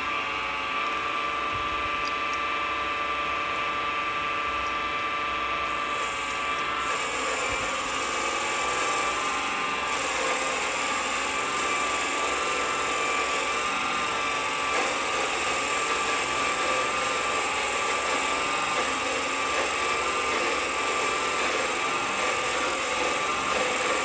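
Vevor mini lathe running, its motor and spindle giving a steady whine. From about six seconds in, a light turning cut on 2024 aluminium adds a hiss of tool on metal over the whine.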